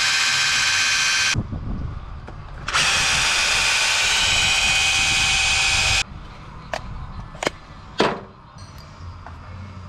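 An electric power tool runs with a steady high whine in two bursts of a few seconds each, then three short sharp knocks.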